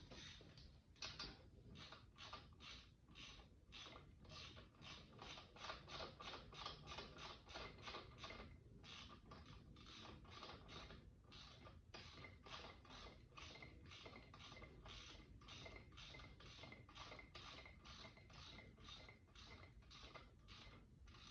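Hand ratchet clicking in a steady run of strokes, about two or three a second, as a fastener is wound down. Faint.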